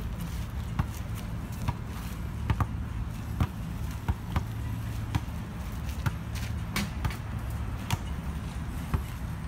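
A basketball bouncing on pavement as it is dribbled, a sharp knock roughly once a second, over a steady low background hum.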